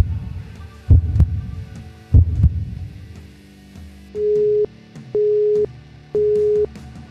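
Heartbeat sound effect: deep double thumps about once a second, fading out after about three beats. Then three steady electronic beeps, each about half a second long and a second apart, at the same pitch, over a faint low drone.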